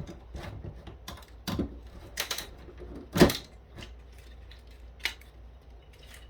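Scattered plastic clicks and knocks as a cordless phone base station's housing and parts are handled during disassembly, with one louder knock about three seconds in.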